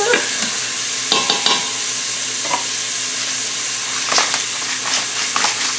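Diced chicken breast sizzling in hot oil in an Instant Pot's stainless steel inner pot on sauté mode; a steady sizzle, the sign that the pot is nice and hot. A few light taps and clicks come about a second in and again around four seconds.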